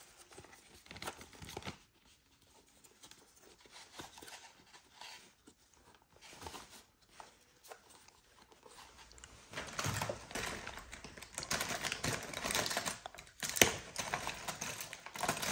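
Phone case packaging being opened by hand: quiet handling with small clicks at first, then louder rustling and tearing from about halfway through, with one sharp click near the end.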